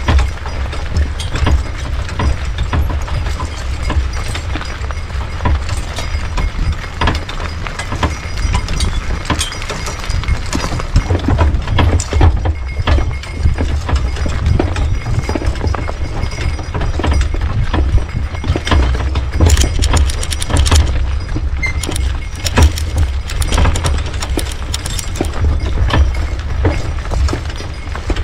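Team of two horses being driven in harness: a steady low rumble under dense, irregular clattering, clicking and knocking of hooves, harness and the horse-drawn vehicle, busier in the second half.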